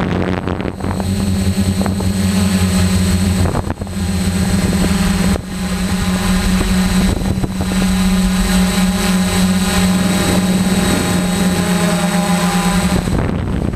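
DJI F450 quadcopter's four electric motors and propellers buzzing steadily in flight, heard from the GoPro on board, with a light rush of wind on the microphone. The buzz dips briefly twice.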